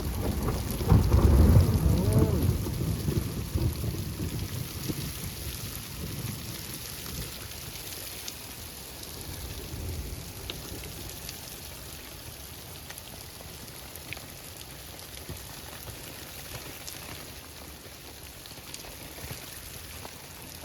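A long roll of thunder, loudest about a second in and rumbling away over the next few seconds, over steady rain falling and dripping.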